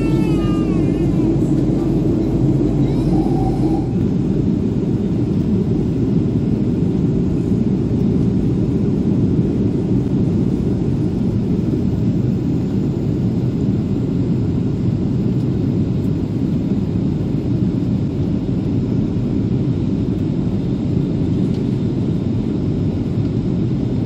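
Steady loud rumble of a Boeing 737's jet engines and rushing air, heard from inside the cabin while the airliner climbs after takeoff. The deepest part of the rumble eases about four seconds in.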